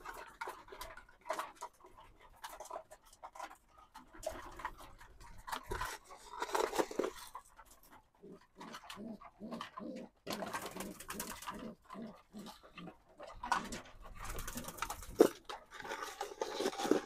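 Caged domestic pigeons cooing: a run of low, evenly spaced coos, about three a second, in the middle. Bursts of rustling and wing flapping come in between.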